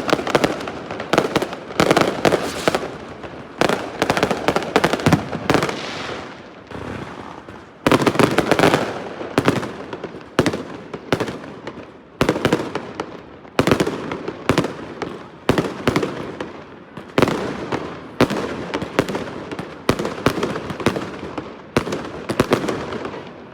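Fireworks going off in rapid succession, a sharp bang about every second followed by crackling as each one bursts.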